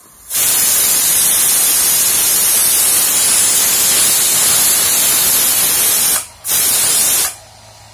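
Pressurised steam hissing loudly and steadily out of a pressure-cooker steam generator as its lid valve is opened. It cuts out briefly about six seconds in, comes back, and stops about a second later.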